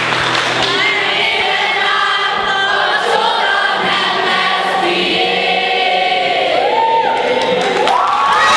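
A large group of mixed voices singing a song together, accompanied by an acoustic guitar.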